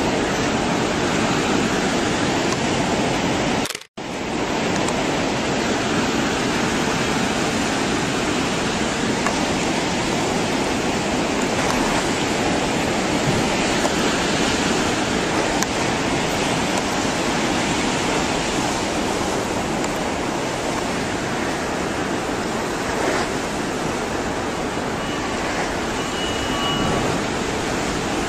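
Tsunami floodwater rushing and churning through a harbour, a loud, steady wash of water noise. The sound breaks off completely for a moment about four seconds in.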